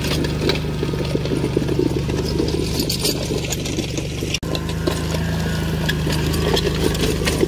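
Kawasaki Mule 4010 Trans UTV engine running steadily while it pulls a disc harrow on a three-point hitch through the soil, with irregular clatter over the engine note.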